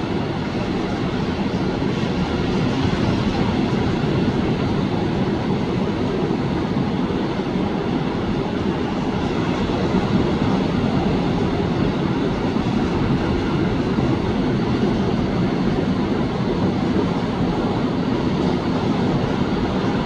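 Ocean surf: small waves washing in, heard as a steady deep rush without distinct separate breaks.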